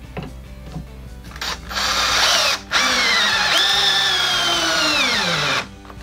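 Cordless drill driving a 5-1/8-inch long, 5/16-inch thick screw into a 2x4 and pressure-treated 4x4. The motor runs in a short burst, stops briefly, then runs again for about three seconds with its pitch sinking steadily as it bogs down, and stops near the end. The screw is too much load for the drill, which keeps stopping.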